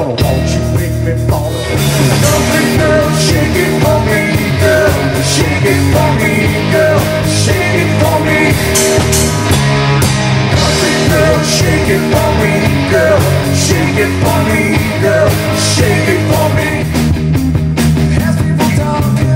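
Live rock band playing loud, with distorted electric guitars over drums and crashing cymbals.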